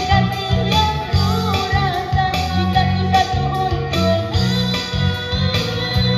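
Live band playing amplified pop through a PA: electric guitar, keyboard and a pulsing bass line, with a woman singing over them.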